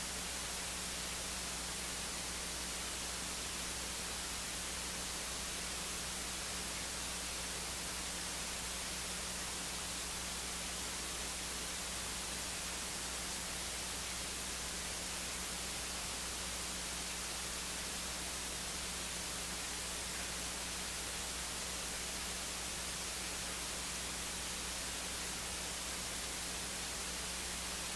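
Steady electronic hiss from the audio feed with a low steady hum beneath it; no other sound stands out.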